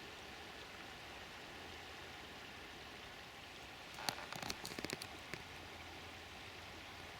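Steady rushing hiss of the River Swale in flood. About four seconds in, a brief flurry of clicks and rustles lasting just over a second.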